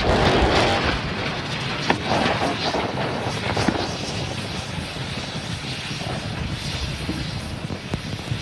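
Rumble of the SpaceX Starship SN8 prototype's crash-landing explosion dying away, loudest at the start and fading gradually, with scattered sharp cracks and pops.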